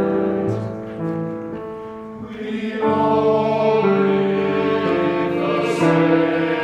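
Choral music with bowed strings: sustained chords sung and played, thinning and quieter about two seconds in, then fuller again a moment later.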